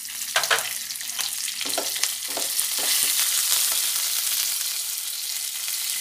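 Curry leaves, green chilli and whole spices (mustard, cumin and fennel seeds) sizzling in hot oil in a non-stick pan as a tempering. The hiss swells about three seconds in, and a spatula scrapes and taps across the pan several times in the first couple of seconds as the mix is stirred.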